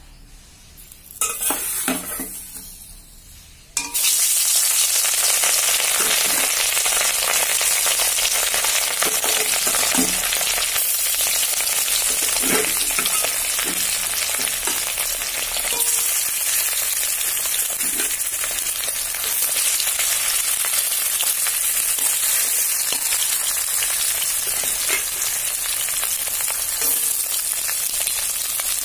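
Turmeric-rubbed pieces of catla fish frying in hot oil in an aluminium kadai: a loud, steady sizzle that starts suddenly about four seconds in, after a few light knocks. A spatula stirs and scrapes now and then.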